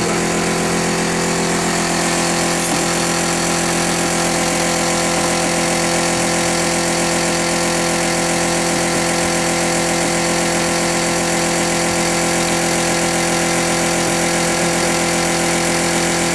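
Steady drone of an engine or motor running at a constant speed, one unchanging pitch with many overtones.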